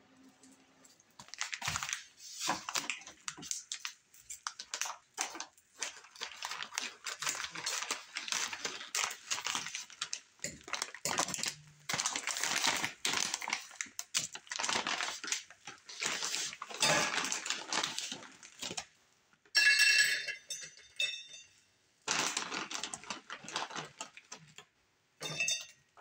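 Aluminium foil crinkling and crackling in irregular bursts as a foil packet is handled and unwrapped. A short ringing metallic clink comes about two-thirds of the way through, followed by more crinkling.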